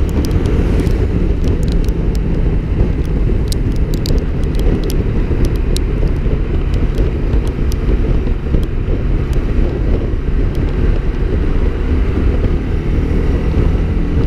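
Wind rushing over the camera of a Honda CB Twister motorcycle cruising at road speed, with its single-cylinder engine running steadily underneath. Scattered light ticks in the first few seconds.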